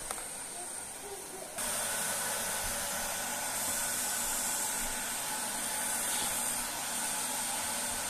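Samsung canister vacuum cleaner running; its motor noise jumps up suddenly about one and a half seconds in and then holds a steady, even hiss.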